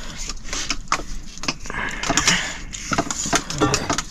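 Kitchen pots and utensils clattering, with irregular knocks and clinks.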